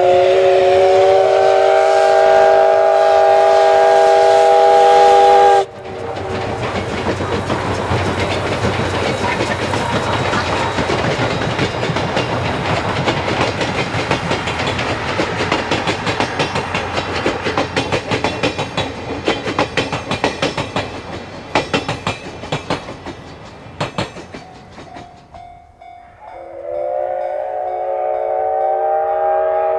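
Steam whistle of the JNR C57 1 steam locomotive blowing a long chord of several tones, about five seconds, that cuts off sharply. The train's running noise follows, a dense rattle and clatter of the locomotive and wheels on the rails, slowly fading. Near the end the whistle starts a second long blast, its pitch rising a little as it opens.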